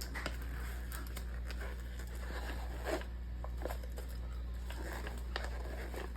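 Paper rustling and light scratchy clicks as a printed paper wrapper is pressed and smoothed around a Pringles can, over a steady low hum.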